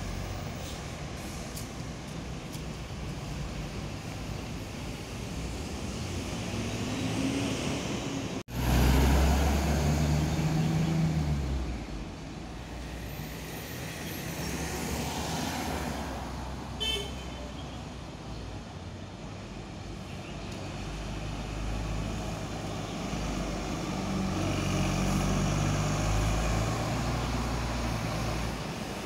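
Double-decker bus engines and street traffic. About a third of the way in, after a cut, a deep engine sound grows loud for a few seconds. A short high beep comes just past halfway.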